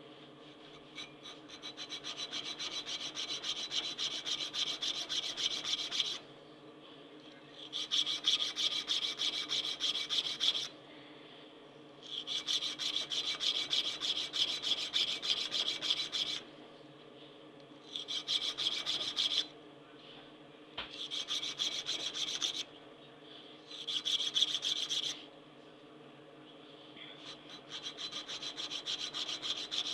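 Steel knife blade clamped in a vise being worked with a thin hand file. Quick back-and-forth rasping strokes come in about seven bouts of a few seconds each, with short pauses between them.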